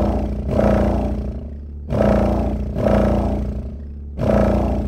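Hi Yanka 10-inch subwoofer playing a song's bass in free air, with no enclosure, driven at a few hundred watts. It gives heavy bass hits about once a second in a repeating beat, each dying away before the next.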